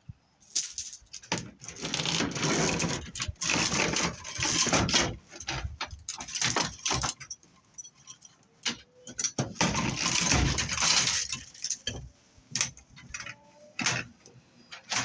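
Scrap metal being handled and sorted by hand: sharp clanks and knocks of metal pieces, with longer stretches of rattling and scraping, one from about a second in to about five seconds and another around ten seconds in.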